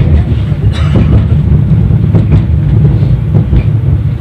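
A 71-931 Vityaz tram in motion, heard from inside the car: a steady low rumble of the wheels running on the rails, broken by a few sharper knocks.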